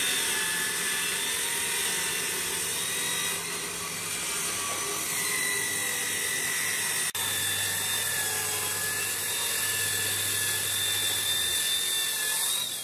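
Makita circular saw cutting along a thick solid-wood slab: a steady, high blade whine in the wood. The whine begins to fall away at the very end.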